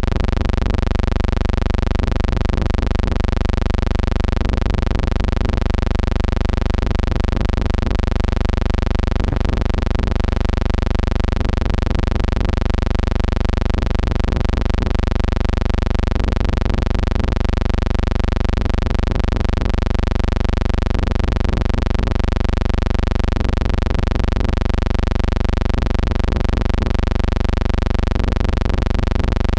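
A steady, unchanging buzzing hum, rich in evenly spaced overtones, holding the same pitch and level throughout.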